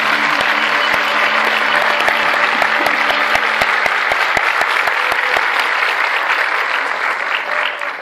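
Concert-hall audience applauding, the clapping dying away near the end.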